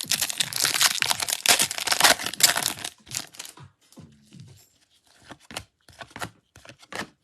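A foil trading-card pack being torn open and crinkled for about three seconds, then lighter scattered clicks and rustles as the cards are handled.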